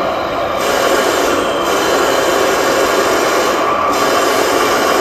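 Steady, loud engine-running sound from a 1/16 metal Leopard 2A6 RC tank's onboard sound unit and speaker, while its turret traverses.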